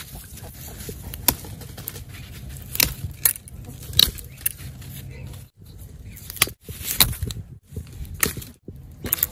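Irregular sharp clicks, snaps and rustles as leafy plant stems are pushed aside and small fruits are picked off by hand, over a low steady rumble.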